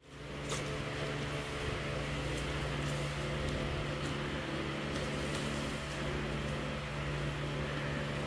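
Steady mechanical hum with a low, even tone over a soft hiss, with a few faint clicks.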